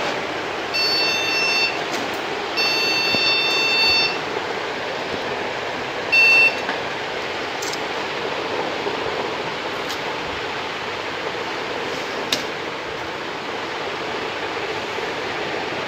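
Desktop PC motherboard beeper sounding a POST error code while the machine runs with no display: two long beeps of about a second each, then a short one, over the steady whir of the running computer's fans. The beeps point to a memory fault, which the technician blames on the RAM.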